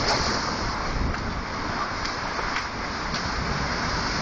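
Storm-force wind blowing hard, a steady rushing noise.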